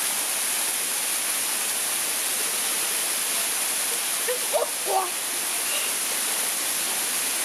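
Small waterfall pouring steadily onto rock, a constant rushing splash. A short vocal sound from a person breaks in briefly about four and a half seconds in.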